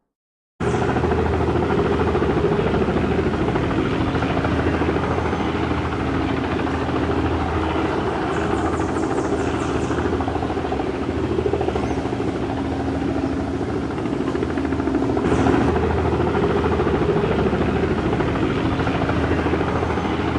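Military helicopter in flight, its rotor chop and engine running steadily. The sound starts abruptly about half a second in.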